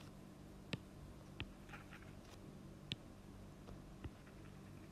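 A few faint, irregular clicks of a stylus tapping on a writing tablet as an equation is handwritten, over a low steady hum.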